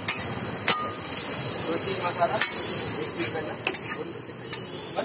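Dosa batter sizzling on a hot flat griddle while a metal spatula spreads potato masala filling over it. Several sharp taps and scrapes of the spatula on the griddle stand out from the steady hiss.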